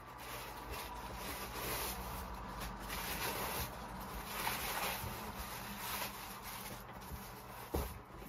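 Cardboard packaging rubbing and scraping as a double-boxed parcel is worked open by hand, with a single knock near the end.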